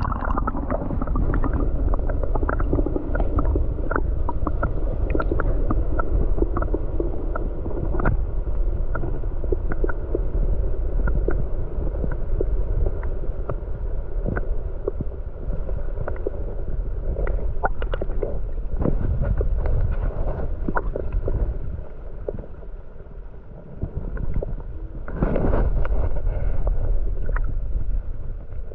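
Muffled sound of a camera held under shallow water: a steady low wash of water against the housing, dotted with many small sharp clicks. The water noise dips briefly and then surges louder about 25 seconds in.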